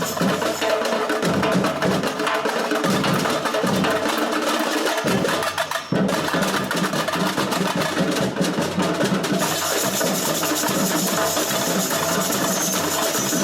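Samba bateria playing live: drums and hand percussion beating a fast, steady samba rhythm, with a brief break a little over halfway through before the beat carries on.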